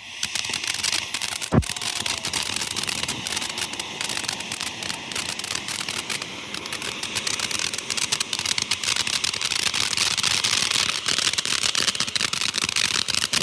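Fireworks going off: a dense, continuous crackling that starts suddenly and keeps on, with one loud bang about a second and a half in.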